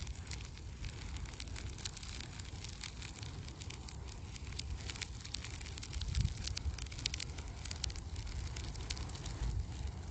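Fire crackling with many quick pops over a steady low rumble, as a recliner chair burns.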